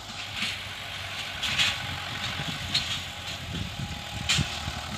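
Hindustan tractor's engine running under load as it hauls a heavily loaded sugarcane trailer, heard as an uneven low rumble. A few brief hissy bursts stand out above it, the loudest about one and a half seconds and four seconds in.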